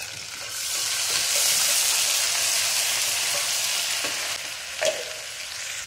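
Ginger-garlic paste sizzling in hot oil with whole spices in an aluminium pressure cooker as it is stirred with a wooden spatula. The hiss swells about half a second in as the paste hits the oil and eases toward the end, with one short knock a little before the end.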